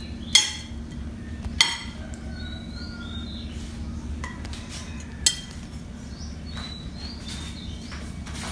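Metal spoon clinking against ceramic plates while pad thai is served out, three sharp ringing clinks: one near the start, one about one and a half seconds in, one about five seconds in.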